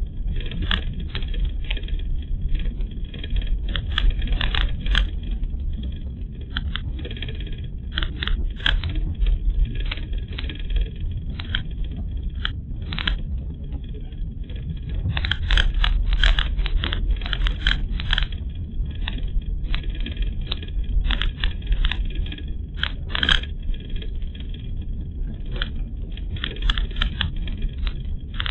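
Car driving on a rough road, heard through a windscreen-mounted dashcam: a steady low rumble of road and engine noise with frequent irregular rattling and clicking from inside the cabin, busiest about halfway through.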